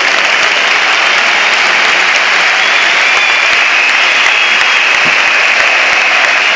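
Large stadium crowd applauding steadily, a dense, loud wash of clapping from the stands.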